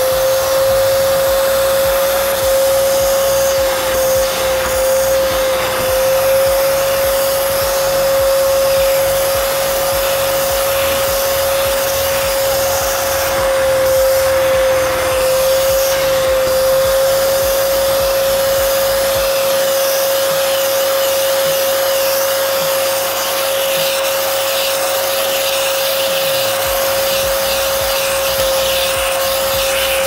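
Arnica Vira washing vacuum cleaner with aquafilter running steadily, a constant whine over a hiss. Its upholstery nozzle is being drawn across a fabric sofa cushion, spraying and sucking up cleaning solution.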